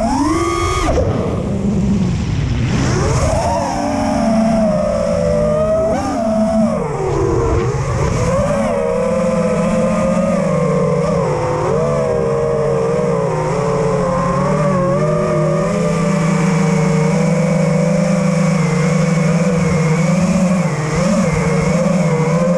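FPV racing drone's brushless motors and propellers whining, heard close from the onboard camera. The pitch swoops up and down with throttle changes through the first several seconds, then holds a steadier pitch with small wobbles.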